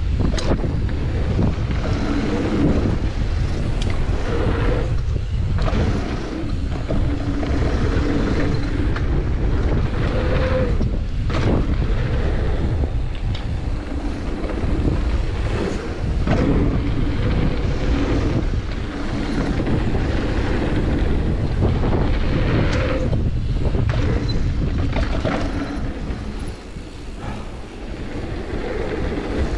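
Wind rushing over the camera microphone and tyres rolling fast on a dirt trail as a downhill mountain bike descends, with knocks and rattles from the bike over bumps and landings.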